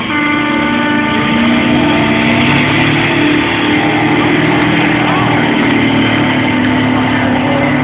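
1999 Chevy Silverado's 6.0 Vortec small-block gas V8 at full throttle under heavy load, pulling a weight-transfer sled. It comes in loud right at the start, the revs climbing over the first second, then holds high and steady.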